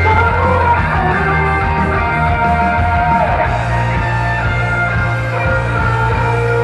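Upbeat idol-pop song with electric guitar and a steady beat, in an instrumental passage, played loud at a live stage show.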